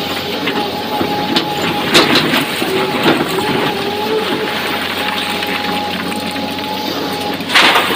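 Hydraulic excavator working, its engine and hydraulics running with a steady whine while the steel bucket scrapes and digs into broken quarry stone. Rocks clatter and knock throughout, with sharp knocks about two seconds in and a loud rush of tumbling rock near the end.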